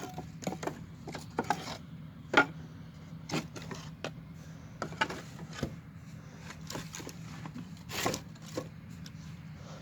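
Irregular clicks, scrapes and rustles close to the microphone, the sharpest a little over two seconds in and another around eight seconds, over a steady low hum.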